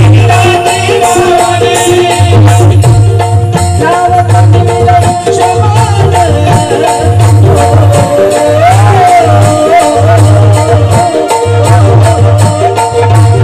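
Folk-style song music: a steady drum beat with a shaker rattling along, under a wavering melody line.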